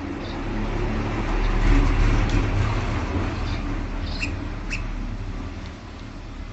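A vehicle passing close by, a low rumble that swells to its loudest about two seconds in and then slowly fades. Over it, a few short high bird chirps, the two sharpest about four and five seconds in.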